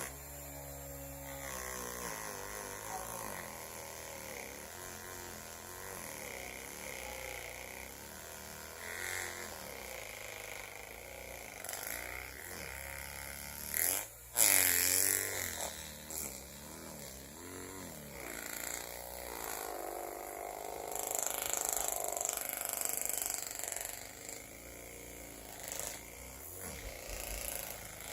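Small battery-powered handheld fan's motor buzzing close to the microphone, its pitch wavering up and down as it is moved about. A brief, sudden loud burst of noise comes about fourteen seconds in.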